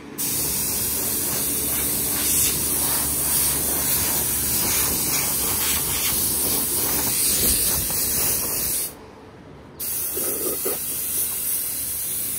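Electric sander running on body filler: a steady hiss of abrasive over a low motor hum. It cuts out abruptly about nine seconds in and starts again a second later.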